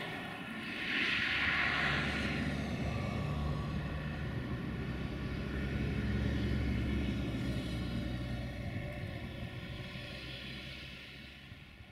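Romanian 060-EA electric locomotive rolling slowly at yard speed with a steady low hum and a brief higher-pitched noise about a second in. The hum fades over the last couple of seconds.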